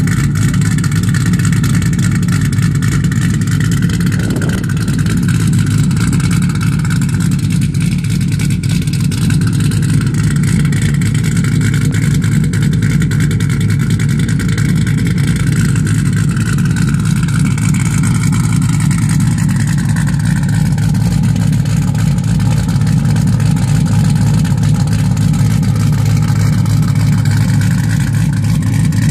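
Car engine running steadily at idle, with faint high whistling tones that drift slowly in pitch above the engine note, a sound the title jokingly puts down to just a vacuum leak.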